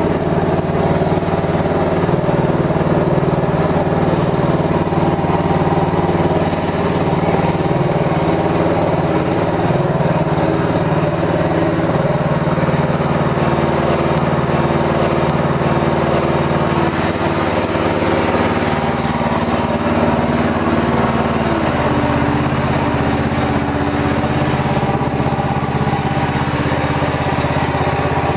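Mygale 500 micro excavator's small petrol engine running steadily while the machine tracks along, its pitch shifting slightly now and then.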